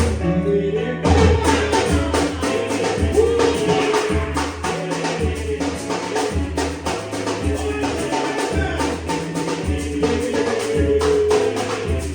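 Music: a song with singing over a pulsing bass line and dense, steady hand percussion.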